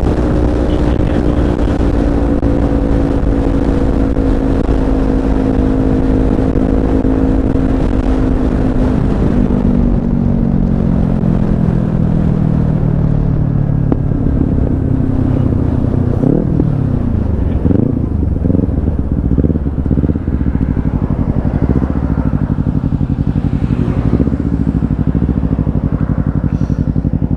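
Kawasaki Z250's parallel-twin engine running as the motorcycle slows from speed, its pitch falling steadily. About two-thirds of the way through come several quick rises and falls in revs as it changes down, and then it settles into a low, steady run.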